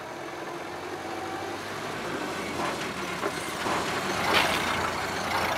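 A car approaching, its engine and road noise growing steadily louder.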